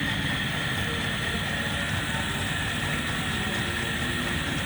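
Steady low drone of a passing river boat's engine, with no change in level.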